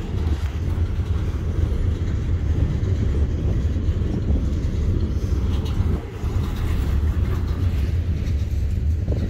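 Norfolk Southern freight train's gondolas and flatcars rolling past on the rails, a steady low rumble.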